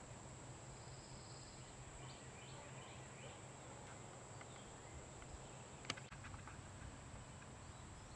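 Near silence: faint outdoor ambience with a steady high-pitched whine, a few faint chirps between two and four seconds in, and one sharp click about six seconds in.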